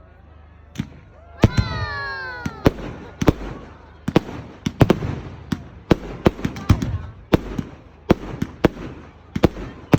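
A fireworks display: a rapid, irregular run of sharp bangs and cracks, with a brief falling wail about a second and a half in.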